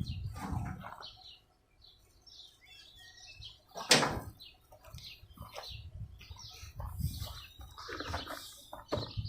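Handling noise from working on a lawn mower during assembly: scattered knocks and rustles, with one sharp click about four seconds in.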